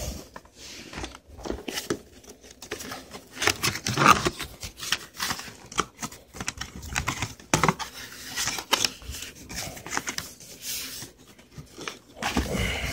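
Cardboard box being opened by hand: flaps pulled apart, scraping and tearing, with rustling of the packaging inside, in irregular bursts.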